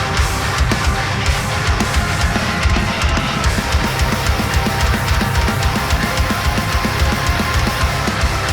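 Death metal song playing at full level: distorted guitars over rapid, steady kick-drum strokes.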